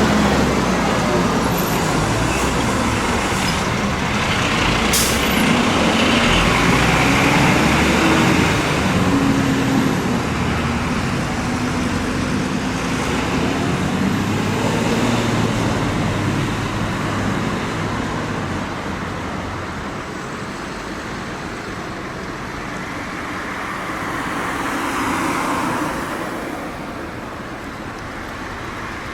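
Heavy trucks, fire engines, driving past with their diesel engines running amid road noise. The sound is loudest in the first third, fades through the second half and swells briefly again near the end.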